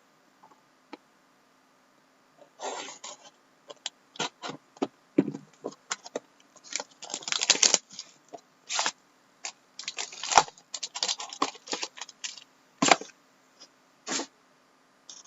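Plastic wrapping crinkling and tearing as a sealed box of hockey trading cards and its pack are opened, in irregular sharp crackles with a few denser bursts.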